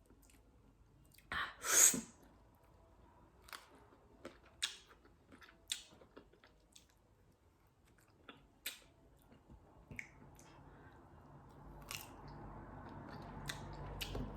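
Close-up mouth sounds of someone eating green mango: chewing with sharp crunches and wet clicks, irregularly spaced. A louder noisy burst comes about two seconds in.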